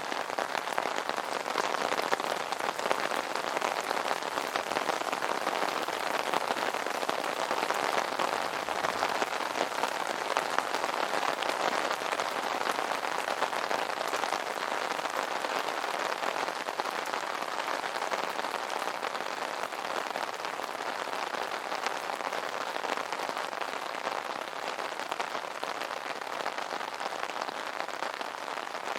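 Steady rain pattering on an umbrella canopy: a dense patter of drops, easing slightly near the end.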